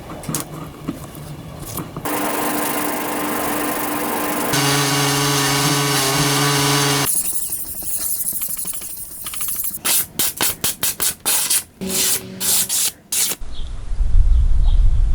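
Knife-shop tool sounds in a series of cut-together clips: a power tool's motor running with a steady hum for several seconds, then a run of quick rubbing strokes, then a low rumble near the end.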